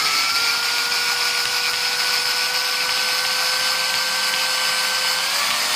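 Electric drill running steadily, its bit pressed through an elastic band onto a stripped screw head to back the screw out. The band gives the bit grip on the worn head. The motor whine steps up slightly in pitch near the end.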